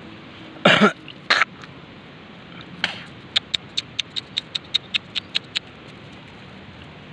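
A man coughs twice. This is followed by a quick, even series of about a dozen light wet taps, roughly five a second, as a finger taps the water in an eel's burrow in paddy mud to lure the eel out.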